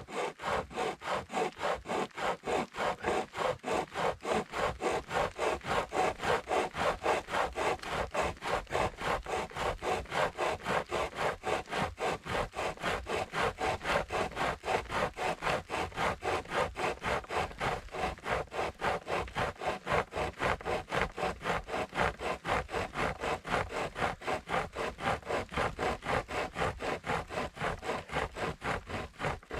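Pocket chainsaw, a length of saw chain with a handle at each end, pulled back and forth through a dead stick, cutting on both strokes. It makes a steady sawing rhythm of about two to three strokes a second and stops abruptly at the end.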